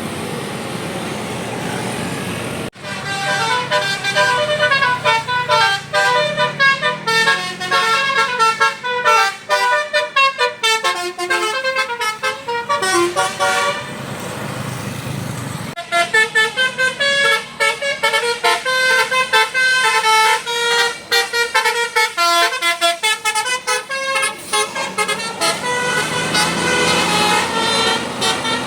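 Bus telolet basuri horn, a multi-trumpet horn, playing a fast tune of quickly changing notes in two long runs with a short break between. The bus's engine and road noise run under it and carry on alone before, between and after the tune.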